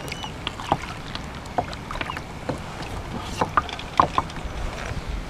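Kayak paddle dripping and small water splashes around the hull, with scattered light knocks and clicks as the paddle is handled and laid across the kayak and an insulated tumbler is picked up.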